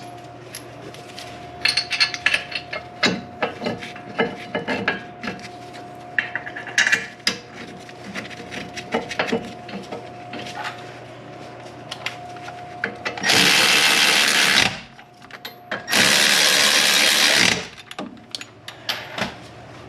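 Power tool running twice, each time for about a second and a half, spinning in the caliper bracket bolts without tightening them down. Before that, light metallic clinks and taps of tools and brake parts being handled.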